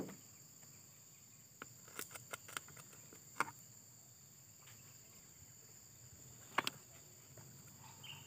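Scattered light clicks and taps as a chainsaw's plastic cover and handle housing are handled and worked loose during disassembly. Under them runs a steady high-pitched drone of insects.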